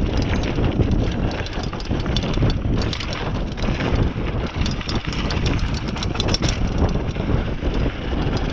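Mountain bike rolling fast down a dirt trail: tyres running over packed dirt and small stones, with many quick clicks and rattles from the bike, under heavy wind buffeting on the microphone.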